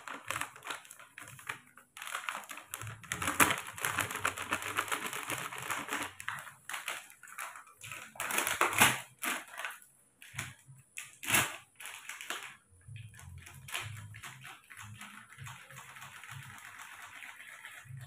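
Powdered milk pouring from a clear plastic bag into a plastic tub, the bag crinkling and rustling with a dense patter of fine crackles. A few sharp, louder crinkles come past the middle.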